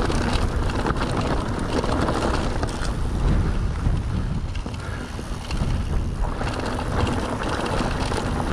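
Mountain bike rolling along a trail: tyre noise and small rattles of the bike over wind buffeting the action camera's microphone.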